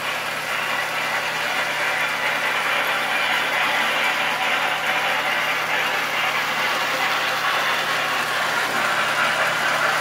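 Train sound effect played from a 78 rpm record on a Victor 4-3 Orthophonic acoustic phonograph: a steady, even running sound of a train under way.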